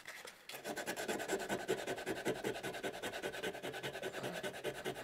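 Sandpaper rubbed back and forth in quick, even strokes over a wood carving, starting about half a second in. It is sanding over freshly applied super glue so the wood dust mixes into the glue and fills a crack.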